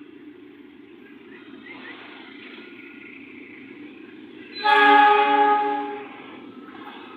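Train locomotive horn sounding one loud blast of about a second and a half, several tones together, over the steady low rumble of the train.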